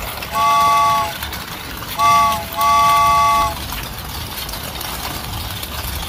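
Multi-note train horn sounding three blasts, each a chord of three steady notes. The first is under a second long; the second and third follow close together near the middle, the last the longest. A steady noise runs underneath.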